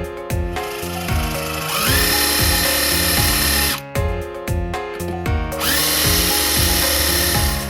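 An electric power-tool motor spins up with a rising whine and runs steadily, twice, each run cut off abruptly, under background music.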